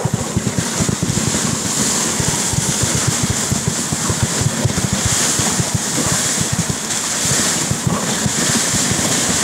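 A moving dog sled on glacier snow: a steady hiss from the runners, with wind buffeting the microphone in irregular low thumps.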